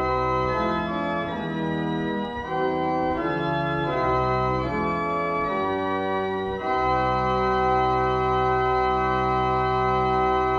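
Organ playing a slow sequence of chords, settling about two-thirds of the way through on one long held chord.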